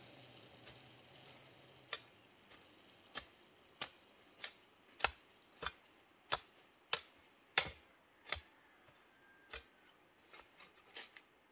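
A series of sharp knocks, about one every 0.6 to 0.7 seconds, starting about two seconds in, with a few smaller, quicker ones near the end.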